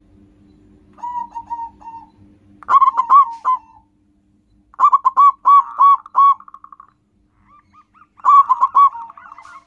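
Zebra dove (perkutut) singing: four phrases of quick, staccato cooing notes, the first one softer and the later ones louder.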